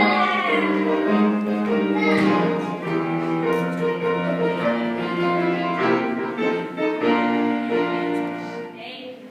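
Classical music playing for a ballet class, growing quieter near the end.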